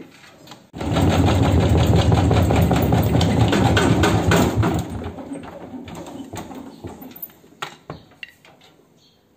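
A 14-year-old Modena front-loading washing machine with an unbalanced load, its drum set off suddenly about a second in with a loud, rapid rattling and banging. The noise eases off and fades over the next few seconds as the drum slows.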